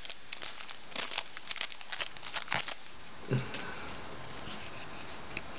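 Foil wrapper of a 2010 Certified football card pack crinkling and crackling as hands work it open and slide the cards out. It is a run of small crackles in the first half that dies down after about three seconds.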